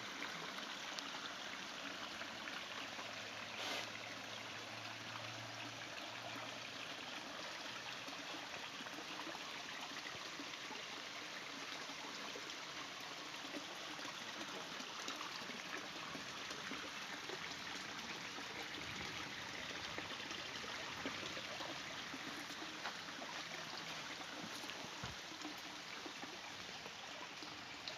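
Steady trickling and splashing water at a koi pond, mixed with rain falling on the water. A faint low hum comes in for a few seconds about two seconds in, and there is one small click near four seconds.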